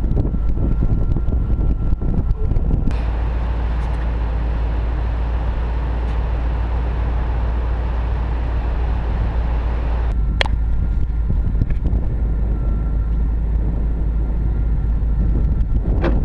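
Wind buffeting a vehicle-mounted GoPro's microphone with a heavy low rumble, with clicks and knocks of hands handling the camera. The sound changes abruptly about 3 s and 10 s in, and a steadier rushing noise fills the middle stretch.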